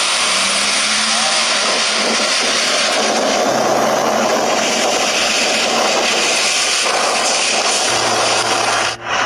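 Loud, steady rushing of strong storm wind during a tornado, with a brief drop-out near the end.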